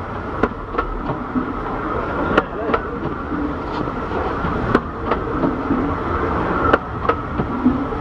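15-inch-gauge railway passenger carriages rolling past slowly: a steady rumble of wheels on rail, with sharp paired clicks of the wheels crossing a rail joint about every two seconds.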